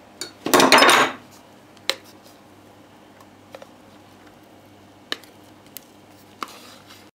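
Kitchenware clatter as thick chocolate batter is poured into a multicooker's nonstick bowl. There is a louder clatter of dish and spoon lasting about half a second near the start, then a few single light clinks.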